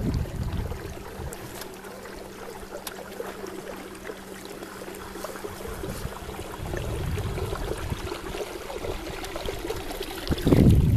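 Water trickling and lapping along a canoe's hull as it moves across a lake, with wind buffeting the microphone at the start and again near the end.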